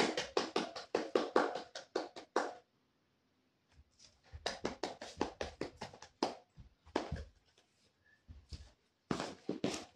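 Labrador on a leather sofa making quick runs of soft taps, about five a second, in several bursts with short pauses between them.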